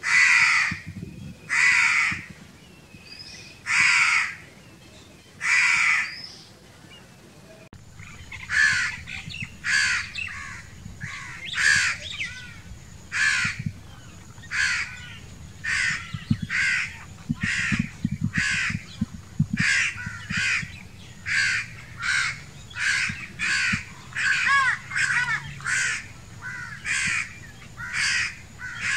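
House crows cawing. First come four loud caws about two seconds apart, then from about eight seconds in a quicker, steady run of caws, one or two a second.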